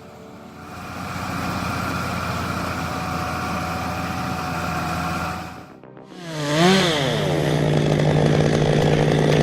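A steady motor drone for about five seconds breaks off. A chainsaw then revs up and back down once and runs on at steady full throttle.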